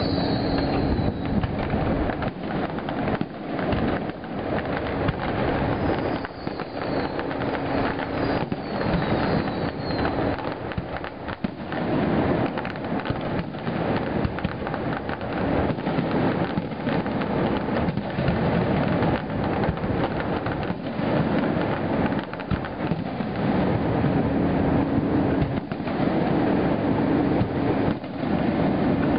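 Fireworks going off in a dense barrage: continuous booming and crackling bangs with no letup, and a few falling whistles in the first ten seconds.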